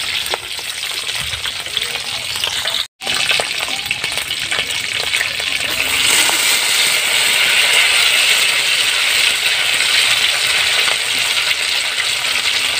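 Small-shrimp fritters (tortang alamang) sizzling in hot oil in a wok, with a metal spoon clinking and scraping against the pan as they are turned. The sound cuts out for a split second about three seconds in, and the sizzle grows louder about halfway through.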